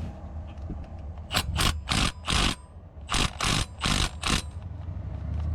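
Hand wrench or ratchet working at a stuck bracket bolt on a Ford engine: eight short rasping strokes in two groups of four, over a steady low hum.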